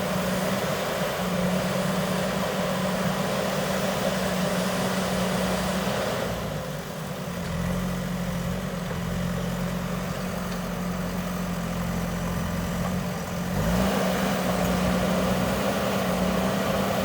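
JCB backhoe loader's diesel engine running steadily. About seven seconds in its note drops lower and duller, and late on it rises back up to the fuller sound.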